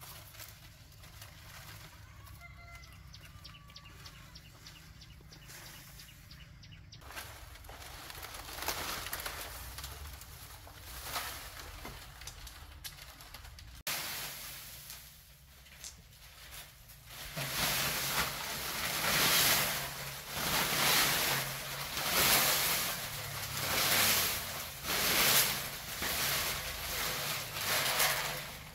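Dry palm fronds rustling and scraping inside a concrete culvert pipe as they are dragged in and laid down. The sound grows louder in the second half, surging about once a second.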